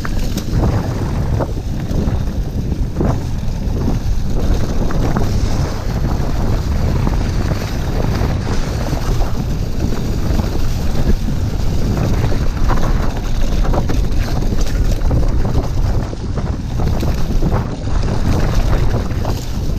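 Wind buffeting the microphone of a camera on an electric mountain bike ridden along a rough trail, with frequent short knocks and rattles from the bike and tyres going over bumps.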